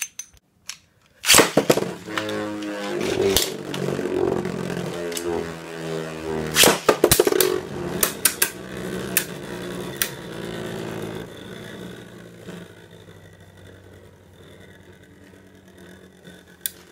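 Plastic Beyblade Burst tops launched into a plastic stadium with a sharp snap, then spinning with a steady whir and knocking together many times. The whir fades as the tops slow down.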